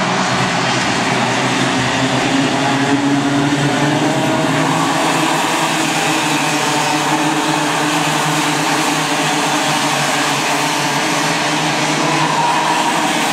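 A pack of racing karts' small two-stroke Raket engines buzzing at high revs as they race past. Several engine pitches overlap and drift up and down without a break.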